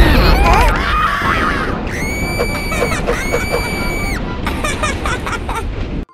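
Explosive demolition charge going off with a sudden loud blast, followed by a continuous low rumble as the tower collapses. A cartoon voice screams over it, including two long, held high screams in the middle.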